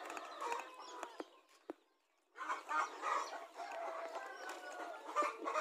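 A flock of chickens clucking and calling, with a rooster crowing among them. The sound drops out briefly about a second and a half in.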